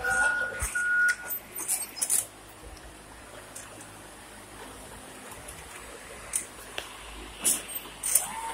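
Forklift's warning beeper sounding twice at the start, then falling silent. After that a steady low running noise remains, with a few short sharp knocks and clacks.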